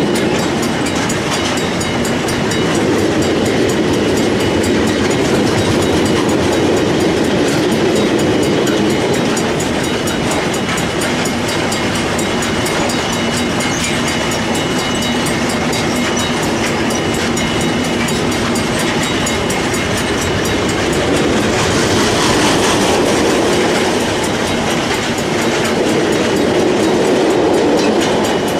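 Freight train of ore hopper wagons rolling steadily past at speed, wheels clicking over the rail joints. A level crossing bell rings steadily throughout.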